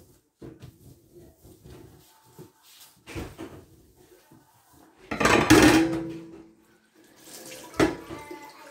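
Gloved hand wiping a stainless steel sink drainer with a cloth, in scattered rubbing strokes, with a louder burst of noise about five seconds in and a sharp knock near the end. The tap then starts running just before the end.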